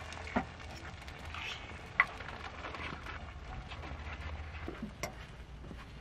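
A spoon scraping and clinking in a small metal bowl of mashed avocado, with a few sharp clicks of tableware on a stainless steel camp table; the loudest click comes about two seconds in.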